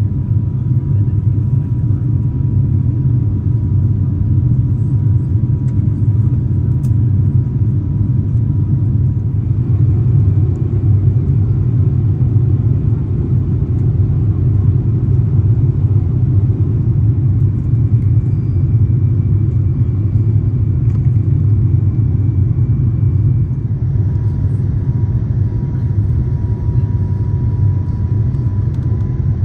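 Airbus A350-900 cabin noise on the descent to landing: a steady low rumble of airflow and engines, with a faint thin tone above it.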